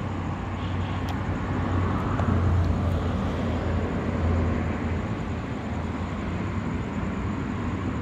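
Steady low rumble and hum under a background hiss, swelling slightly a couple of seconds in.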